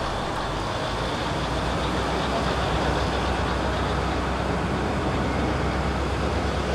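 Kominato Railway KiHa 200 diesel railcar pulling away from a station, heard from inside the cabin: a steady low engine drone under running noise that grows a little louder over the first few seconds as the railcar gathers speed.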